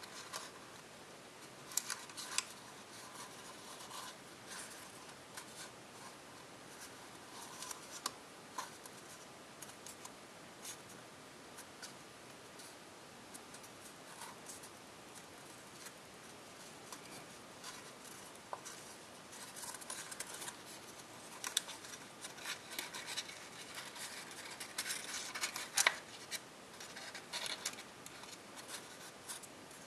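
Copper tissue foil creasing and crinkling under fingers as it is folded: irregular small crackles and rustles, busier in the last third.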